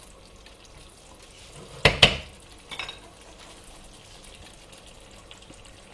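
Rice simmering in a frying pan with a faint steady hiss while a spoon stirs it. About two seconds in come two sharp knocks close together and a lighter clack just after, as the stirring spoon is tapped off and laid down on a plate.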